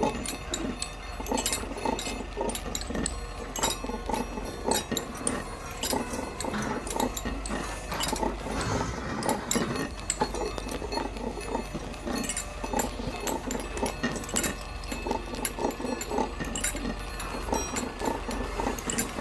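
A refuse truck's engine running steadily to drive its hydraulic grab crane, with a continuous low rumble and many irregular short creaks, clanks and clicks as the clamshell grab works.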